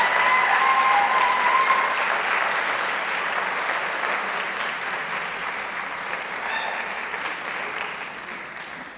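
Audience applauding after a chorus performance, with a cheer in the first couple of seconds; the applause gradually dies away.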